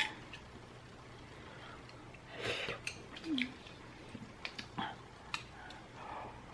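A person eating ramen noodles: a short slurp about two and a half seconds in, then quiet mouth and eating noises with a few light clicks.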